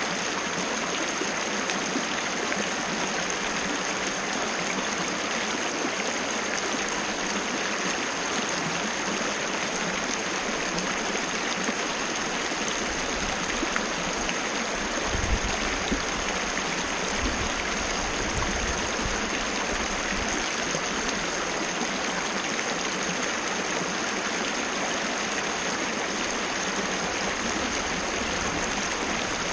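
Waterfall cascade rushing and splashing steadily, with a thin steady high tone above the water. A few low bumps come about halfway through.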